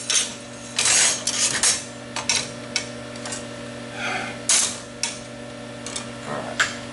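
Metal parts clinking, clanking and scraping against a steel welding table as the pieces are handled and set in place: a series of short, irregular metallic knocks over a steady low hum.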